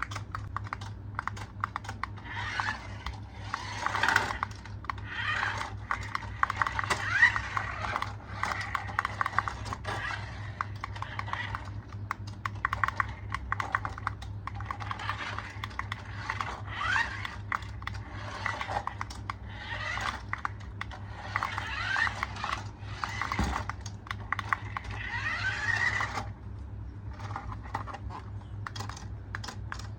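Rapid, irregular clicking and rattling, thinning out after about 26 seconds, over a steady low hum.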